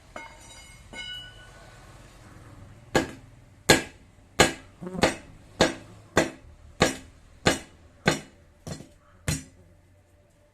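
Two ringing metal clinks, then about eleven evenly spaced hammer blows, roughly one every two-thirds of a second, during work on a tyre and wheel rim.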